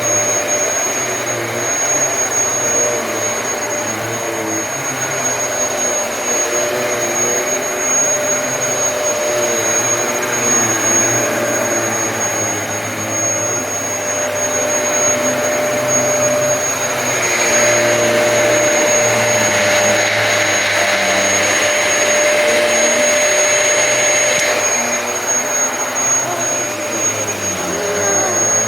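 Dyson DC33 upright vacuum cleaner running as it is pushed back and forth: a steady high motor whine, with lower tones that waver up and down. From about 17 to 25 seconds in, a hissier rush of air rises over it.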